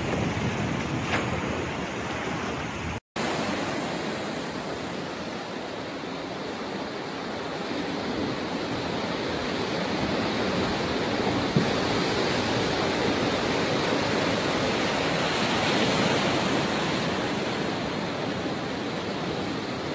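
Heavy storm surf whipped up by a cyclone: large waves breaking and foaming water rushing in a steady noise, with a momentary dropout about three seconds in.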